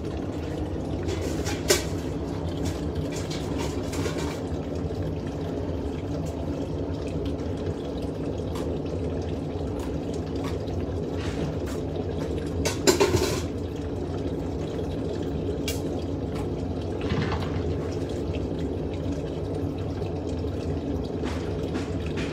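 Portable mini glassblowing furnace running with a steady rushing noise, with a few short knocks about 2, 13 and 17 seconds in, the one near 13 seconds the loudest.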